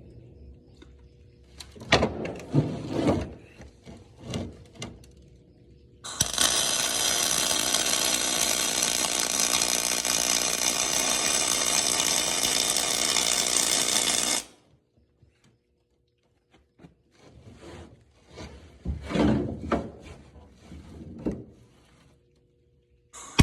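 MIG welder arc burning for a single weld bead of about eight seconds, a steady crackling hiss that starts and stops abruptly. It is preceded and followed by scattered knocks and clatter of handling, and a second weld starts right at the end.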